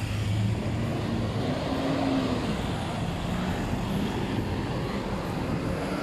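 Street traffic: a motor vehicle's engine running close by over steady road noise, its pitch rising and falling about two seconds in.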